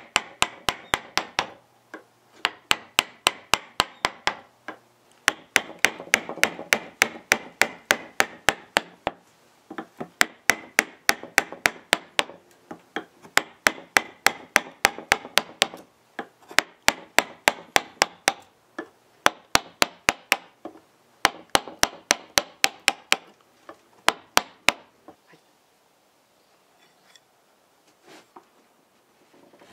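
Quick, sharp taps on the steel-capped end of a Japanese carving gouge's handle, driving the gouge through wood to hollow a ladle's bowl. The taps come several a second in runs of a few seconds with short pauses, and stop near the end.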